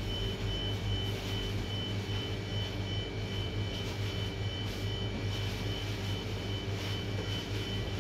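Steady drone of a kitchen ventilation fan, a constant low hum with a faint high whine, with a few faint rustles of paper towel being spread on the counter.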